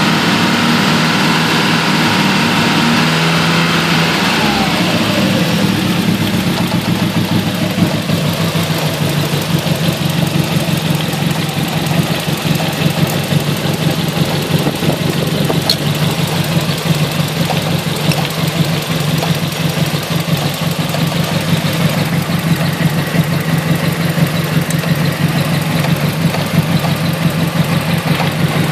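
Nissan CA18DET turbocharged 1.8-litre four-cylinder engine idling with a shaky, lumpy misfire; its pitch drops about four seconds in, then it settles into an uneven, pulsing idle. Unplugging coil two makes no difference to the idle although that cylinder has spark and fuel, the sign of a dead cylinder.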